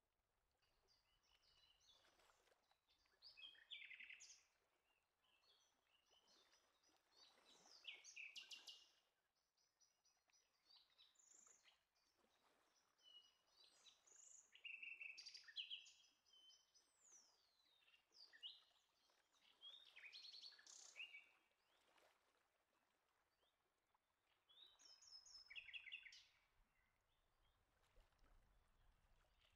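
Faint birdsong: songbirds giving short chirps and quick trills every few seconds, with quiet gaps between.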